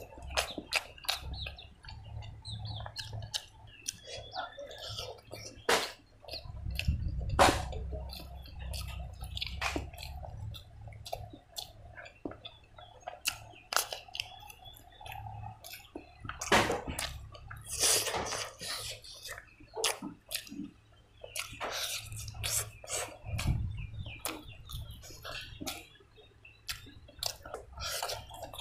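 Close-up wet chewing and lip smacking of a mouthful of rice and pork curry eaten by hand, with irregular sharp mouth clicks.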